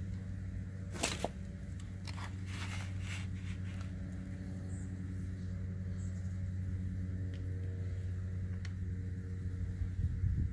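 Small clicks and scrapes of hands working a hydraulic hose fitting on a spoiler lift cylinder, the sharpest click about a second in and a short cluster a second or two later. A steady low hum runs underneath.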